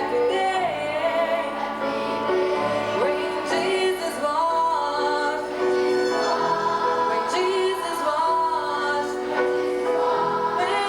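A choir singing with musical accompaniment, voices holding long notes.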